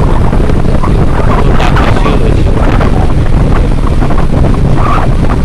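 Heavy wind noise buffeting the microphone of a motorcycle riding at speed, with the TVS Apache 160's single-cylinder engine running underneath.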